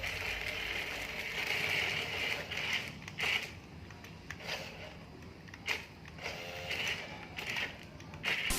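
Small electric motors and plastic gears of a radio-controlled toy construction vehicle whirring in short spurts that start and stop, with a few sharp clicks.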